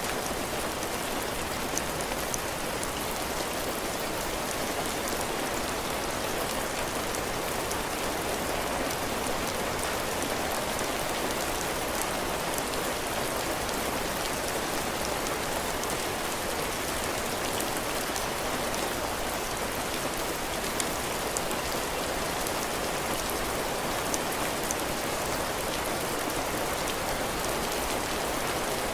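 Heavy rain falling steadily on a cabin porch, drops hitting the roof and the ground in a dense, even patter with scattered sharper drop hits.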